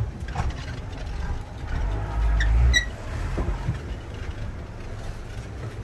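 Low, steady rumble of a glass-bottom boat's motor with water noise, swelling for about a second around two seconds in. A brief high squeak near three seconds.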